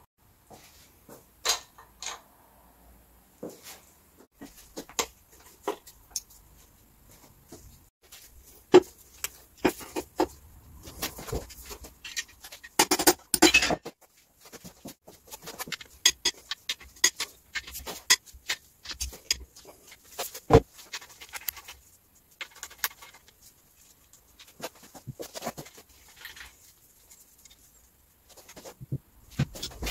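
Scattered metal clinks, taps and knocks of hand tools and engine parts being handled as connecting-rod caps are unbolted from the crankshaft. A dense run of clattering comes about thirteen seconds in, and single sharper knocks come near nine and twenty seconds in.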